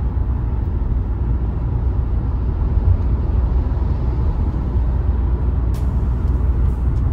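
Steady low rumble of a car's engine and tyre noise heard from inside the cabin while cruising at highway speed.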